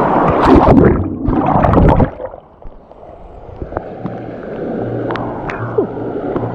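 Water rushing and splashing loudly around a rider going down a water slide. It cuts off suddenly about two seconds in, as the ride ends, and gives way to a softer, steady wash of water.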